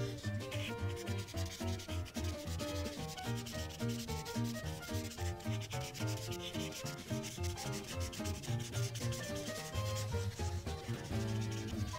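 Prismacolor marker tip rubbing back and forth on paper in quick repeated strokes as a large area is filled in with colour. Quiet pitched background music runs underneath.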